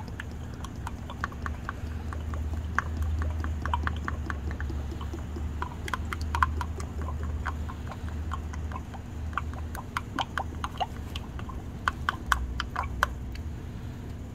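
Plastic quart bottle of CVT fluid glugging as it empties into a funnel, with rapid, irregular pops and gurgles as air bubbles back into the bottle. A low steady hum runs underneath. This is the transmission being refilled after draining.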